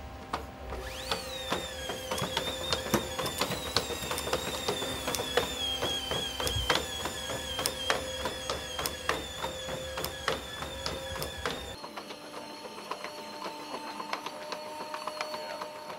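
Boston Dynamics' first-generation Spot quadruped robot walking, its power unit whining steadily high with a slightly wavering pitch, over many sharp, irregular clicks and taps from its legs and feet. The whine sets in about a second in with a brief falling glide. Near the end it gives way to lower, quieter tones.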